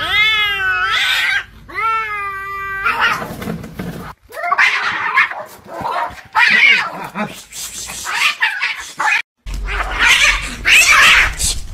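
Angry cat yowling twice in long, wavering calls, then a stretch of harsh hissing.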